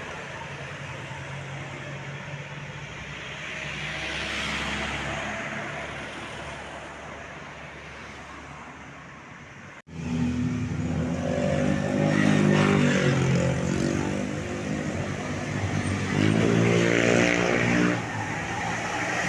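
Road traffic and a bus engine running. Then, after a cut about ten seconds in, a tour bus's Basuri 'telolet' multi-tone horn plays its stepping tune in two stretches, the first about four seconds long and the second about two, over the engine.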